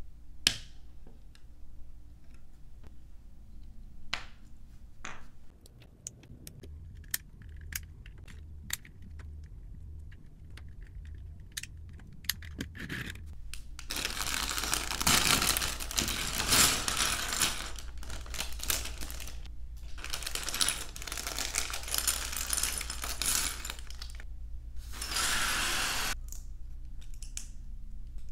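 LEGO bricks clicking as plastic pieces are pressed together, a sharp snap every second or so. About fourteen seconds in, loud crinkling and tearing of the plastic parts bags being opened and handled, in three long stretches, then a few light clicks of bricks again near the end.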